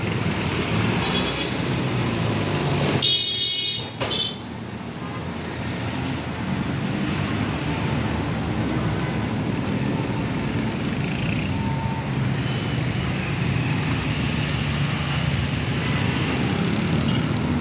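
Street traffic: a steady low rumble of vehicle engines and tyres from passing cars, jeepneys and motorcycles. A brief high-pitched tone sounds about three seconds in, while the low rumble drops away for a moment.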